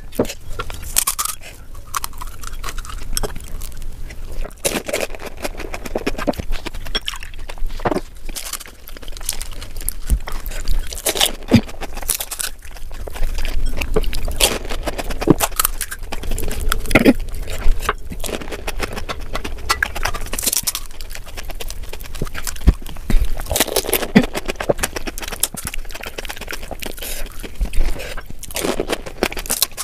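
Close-miked panipuri eating: crisp puri shells cracking under fingers and crunching in the mouth, with wet chewing.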